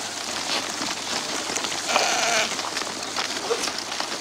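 A sheep bleats once, briefly, about two seconds in, over a steady noisy background.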